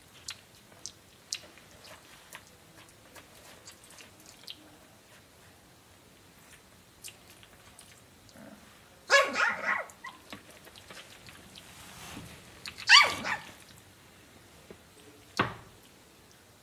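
Bernese mountain dog puppy giving two short yelps about four seconds apart, the second higher and louder, followed by a single sharp knock.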